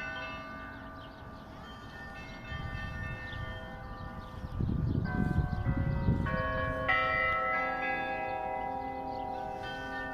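Church bells being rung, several bells of different pitches struck in turn and ringing on over one another, with fresh strikes coming more thickly past the middle. A low rumble swells under the bells around the middle, which is the loudest part.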